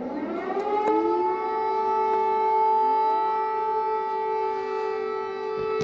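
Civil-defence air-raid sirens sounding across the city, warning of a possible missile attack. They rise in pitch over the first second, with a second glide joining, then hold a steady wail on two main notes.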